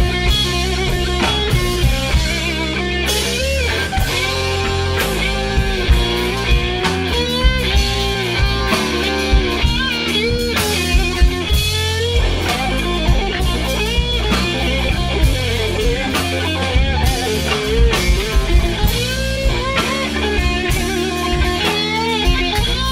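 Live blues trio playing a slow blues: an electric guitar solo with many string bends and vibrato over bass guitar and drums.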